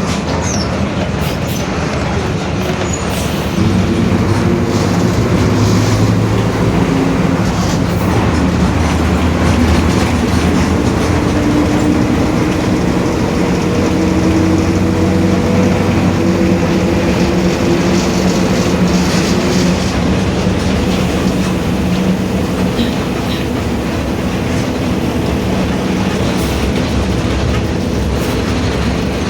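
Mercedes-Benz OF-1721 BlueTec 5 city bus under way: the diesel engine and drivetrain run with a steady rumble, and the differential growls. A higher whine from the drivetrain comes in about ten seconds in and fades after about twenty.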